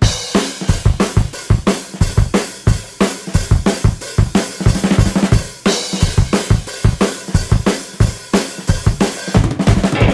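Background music: a drum kit playing alone at a fast, steady beat of kick, snare and cymbals, the drum intro of a rock track.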